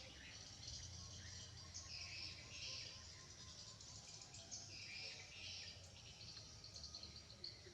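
Faint high-pitched chirping or squeaking calls from small animals, in short repeated bouts, over a low steady background hum.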